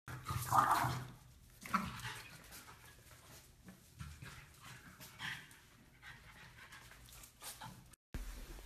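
French bulldog puppy whimpering in short cries on and off, the loudest about half a second in.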